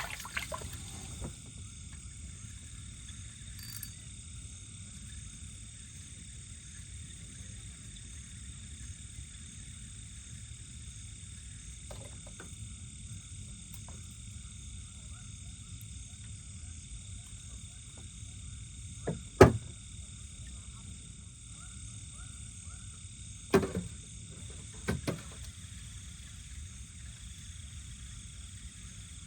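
Steady night chorus of frogs and insects calling without a break. It is cut by a few sharp knocks: a loud one about two-thirds of the way in, and two smaller ones a few seconds later.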